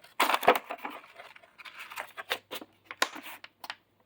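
Tools and cases being handled in a toolbox drawer: an irregular run of clicks, clatters and rustles, loudest in the first second.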